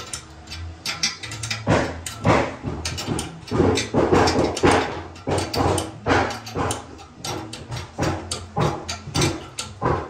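Irregular clicking, knocking and scraping of hand work on a toilet's tank fittings, starting about a second in and running on in quick, uneven clusters.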